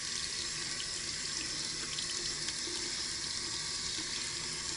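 Tap water running steadily into a sink as a washcloth is wetted under it.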